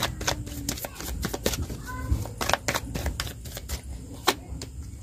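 A deck of tarot cards being shuffled by hand: a quick, irregular run of sharp card snaps and flicks.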